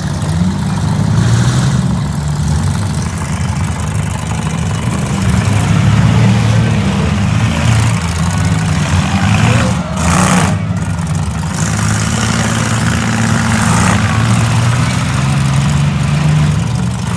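Several minivan and small-truck engines running and revving together in a demolition derby heat, with a brief louder burst of noise about ten seconds in.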